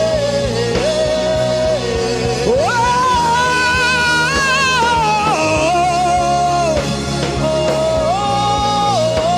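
Worship music: a wordless melody of long held notes that step and glide between pitches, climbing higher in the middle, over sustained backing chords and a steady low beat.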